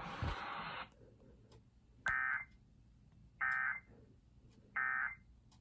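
Emergency Alert System end-of-message signal: three short, identical bursts of warbling digital data tones, about 1.3 s apart, closing out the severe thunderstorm warning. Before the bursts, the last of the broadcast audio cuts off just under a second in.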